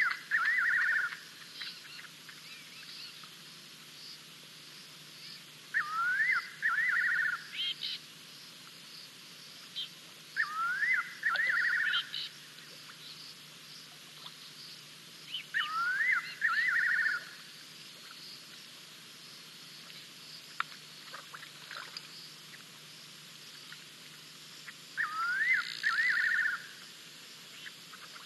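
A bird calls the same short phrase five times, several seconds apart: a rising whistle that runs into a quick string of notes. Under it is a faint steady high hiss.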